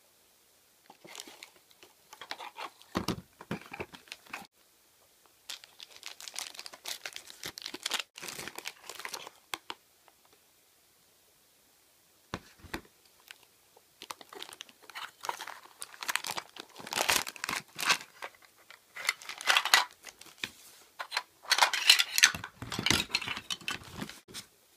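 Clear plastic wrapping crinkling and rustling in hands as a plastic toy lunchbox set is unwrapped, in irregular bursts with a short pause midway and the loudest crinkling near the end. A soft knock about three seconds in.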